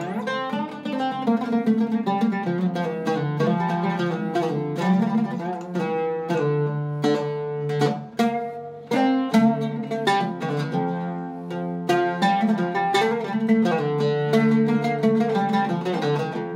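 Iraqi-style Zaryab oud with a cedar top and a wenge-and-maple bowl, played solo as a single melody of quick plucked notes. There is a brief lull about eight seconds in, then the playing picks up again.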